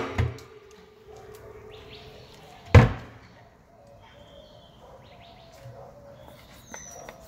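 Small birds chirping outside with short high whistles in the second half. A thump at the start and one sharp knock about three seconds in are the loudest sounds.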